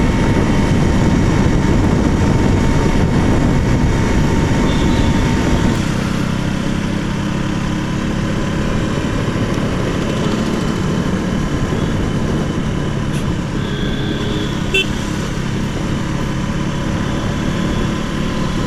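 Single-cylinder engine of a KTM RC 200 motorcycle running on the move in road traffic. A heavier low rush of noise drops away about six seconds in. A short horn toot sounds about three quarters of the way through.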